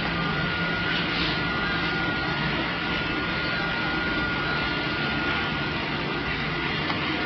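A steady machine drone with a constant thin whine above it and a low hum beneath, unchanging throughout.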